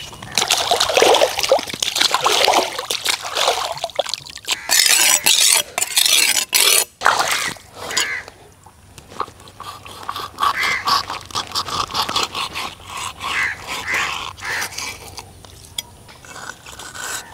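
Water splashing and sloshing as a snakehead fish is rinsed by hand in a pond. From about seven seconds in, a knife scrapes the fish's scales off on a wet stone slab in a run of short strokes.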